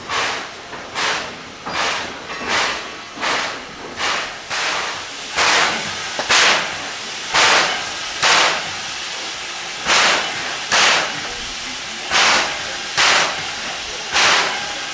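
Steam locomotive C11 325 giving off rhythmic bursts of steam. The beats come about twice a second at first, then louder and roughly once a second, often in pairs.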